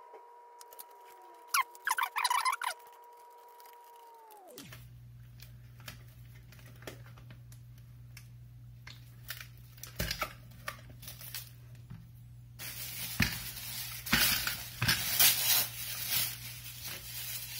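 Handling noises from gluing and clamping a hard hat suspension into a plastic dome: a short scraping burst about two seconds in, then scattered clicks and knocks of metal C-clamps. From about thirteen seconds a loud rustling and crinkling runs on as a cloth wipes excess glue off the stretch-wrapped dome. A steady electrical hum sits underneath throughout.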